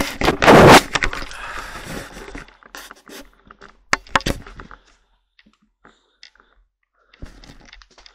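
Handling noise from a handheld camera: a loud scraping rub against the microphone about half a second in, trailing off over the next two seconds, then a few scattered sharp clicks and knocks.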